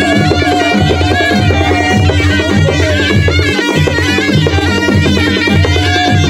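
Nepali panche baja band playing: clarinets carry a wavering, ornamented melody over steady drum beats from drums struck by hand and stick.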